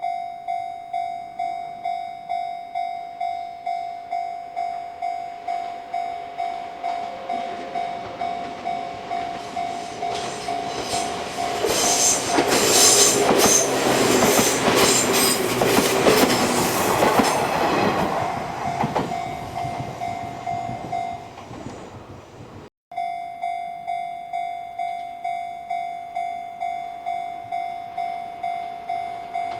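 Japanese level-crossing warning bell ringing in a steady, rapid pulse, about one and a half dings a second. A Sunzu Line train passes through the crossing about a third of the way in, its wheels clattering over the rail joints and drowning out the bell. The sound cuts out briefly about three-quarters of the way through, and then the bell starts ringing again.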